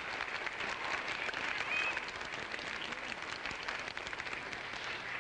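Studio audience applauding, a dense patter of many hands clapping that thins out toward the end.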